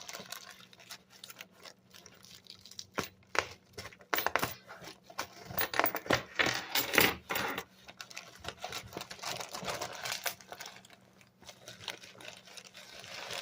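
Toy packaging being handled and opened by hand: irregular rustling, tearing and small clicks, with louder bursts of handling through the middle.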